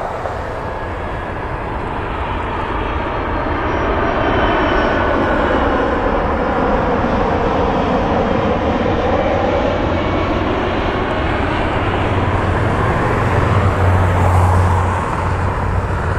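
FedEx Boeing 767-300F freighter's twin General Electric CF6-80C2 turbofans on final approach to landing. The jet noise grows louder in the first few seconds as it nears, and its pitch falls as it passes close by.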